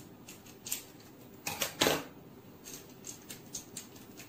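A plastic toffee wrapper being worked open by hand, crinkling in short irregular crackles, with a louder crackle a little under two seconds in.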